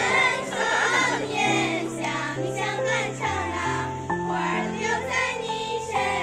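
A group of young women singing a Tujia folk song together in unison, over accompaniment music with held low notes that change every second or so.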